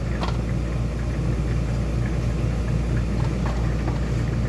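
A steady low hum, with a few faint clinks, typical of silverware being handled during cleaning.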